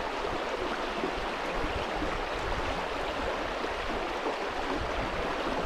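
Water rushing steadily.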